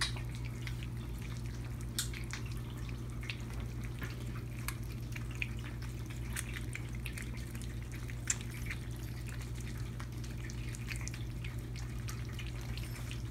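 A litter of kittens eating wet canned cat food from a shared plate: an irregular patter of small wet smacks and chewing clicks over a low, steady hum.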